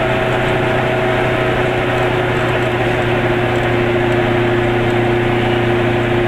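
Car engine running steadily at cruising speed with tyre and wind noise, heard from inside the car; a held whine changes pitch slightly a couple of times.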